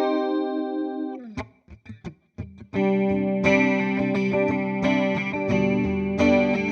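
Electric guitar, a Fender Jazzmaster with humbuckers, played through a Boss CE-2 chorus pedal into a simulated Fender '65 Twin Reverb amp. A held chord rings and is cut off about a second in, followed by a few muted string scratches, then chords strummed over and over from about three seconds in.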